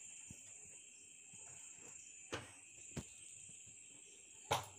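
Faint, steady, high-pitched trilling of crickets, with a few soft knocks, the loudest near the end.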